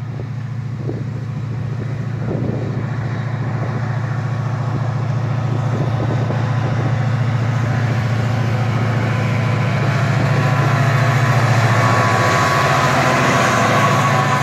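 GM/EMD GT26CW-2 diesel-electric locomotive, with its 16-cylinder EMD 645 two-stroke diesel engine, approaching and passing close by. Its low, steady engine drone grows louder throughout, and wheel and rail noise rises near the end as the locomotive goes by.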